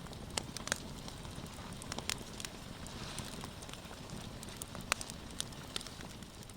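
Campfire crackling: a steady hiss with irregular sharp pops.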